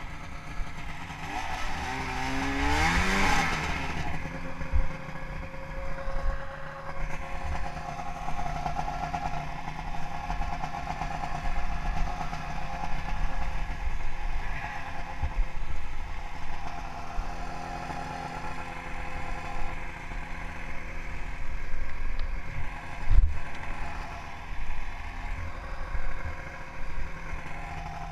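Ski-Doo snowmobile's Rotax engine running, revving up with a rising pitch about two seconds in, then running on at a steady, varying throttle through deep snow. A single sharp knock sounds late on.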